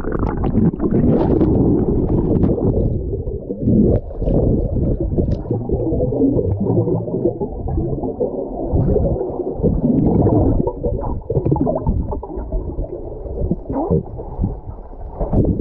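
Underwater sound picked up by a submerged camera: a muffled low rumble and gurgling of moving water and bubbles, with scattered small clicks and knocks.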